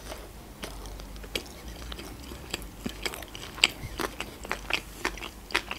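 A person chewing a mouthful of sushi roll close to the microphone: irregular wet clicks and smacks of the mouth.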